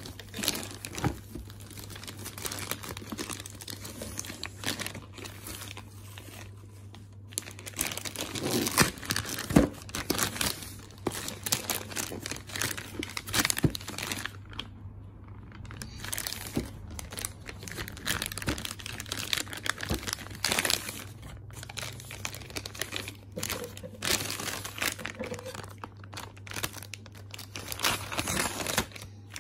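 Thin plastic courier mailer bag crinkling and rustling in irregular bursts as it is handled and pulled open by hand, with a faint steady low hum underneath.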